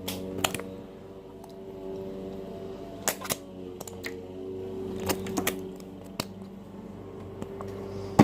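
Scattered sharp clicks and taps, about eight in all, some in close pairs, over a steady low electrical hum.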